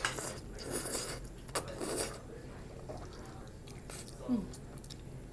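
Close-up eating sounds: jjajangmyeon noodles slurped and chewed, with a few short smacks in the first two seconds. About four seconds in comes a bite into a piece of fried sweet and sour shrimp.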